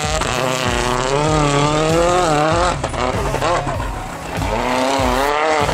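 Citroën DS3 WRC rally car's turbocharged four-cylinder engine revving hard, its pitch rising and falling with the throttle and gear changes. There is a brief crackle of sharp pops about halfway through.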